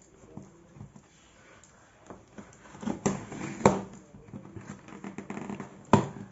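Product packaging being handled: soft rustling and scraping, with three sharp knocks about three seconds in, shortly after, and near the end.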